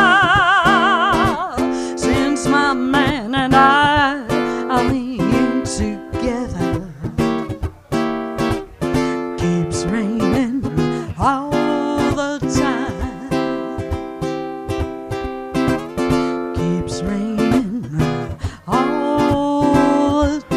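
Female jazz vocalist holding a long note with wide vibrato at the start, then singing on in slow phrases over plucked baritone ukulele chords.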